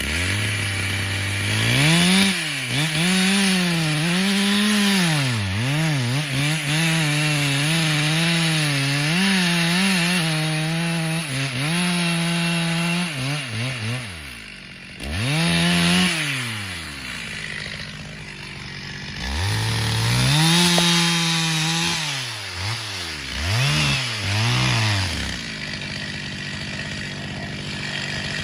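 Chainsaw engine revving and cutting wood, its pitch rising and sagging repeatedly as the chain bites and clears. The engine drops back briefly twice between cuts, and its note falls away near the end.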